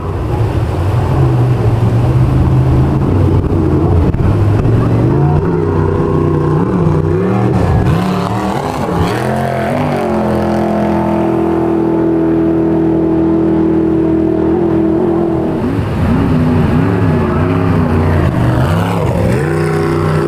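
An engine running, its pitch rising and falling as it revs, then holding steady for about five seconds in the middle.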